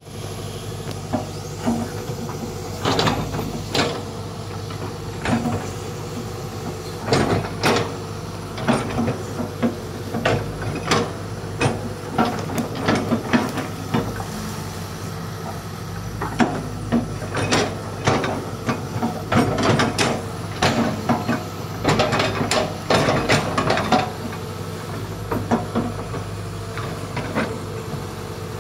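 Hitachi hydraulic crawler excavator running steadily under load while its toothed steel bucket digs into the earth bank. Frequent irregular knocks and scrapes of the bucket and soil clods sound over the engine's steady hum.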